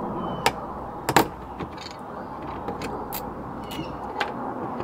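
Pliers gripping and working pressed-in gold-plated pins on a circuit board: a handful of short sharp clicks and knocks, the loudest a little over a second in, over a steady background hiss.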